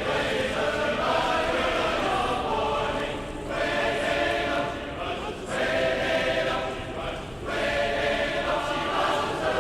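A choir singing held notes in phrases, with short breaks between the phrases.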